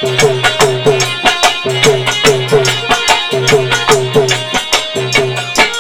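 Instrumental folk music accompaniment for a Holi song: hand drums play a fast, even rhythm, their bass strokes bending down in pitch, over dense clashing percussion.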